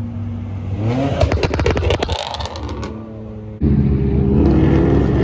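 A performance car's engine revs up about a second in and is followed by a rapid string of sharp exhaust crackles and pops. A little past halfway it cuts abruptly to a louder engine running steadily.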